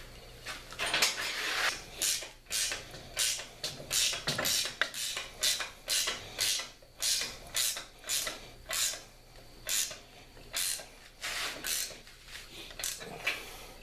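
Ratchet wrench clicking in quick repeated back-and-forth strokes, about two a second, tightening nuts onto the bolts that hold a bench vise to its mount.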